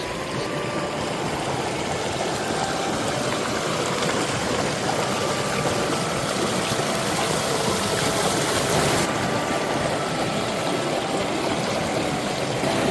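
Mountain valley stream rushing steadily over rocks, running full and fast after the monsoon rains.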